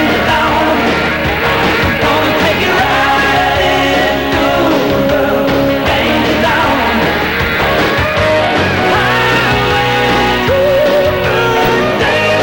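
Rock music with a sung vocal and guitar, playing steadily.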